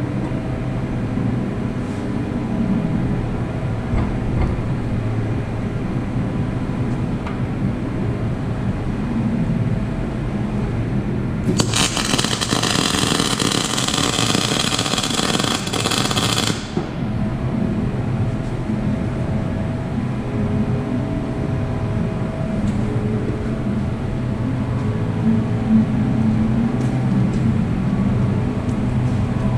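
MIG welder arc crackling and hissing steadily for about five seconds, starting about eleven seconds in, as a weld is laid on thick 19 mm steel plate with the welder set high for the thick plate. A steady low hum runs under it.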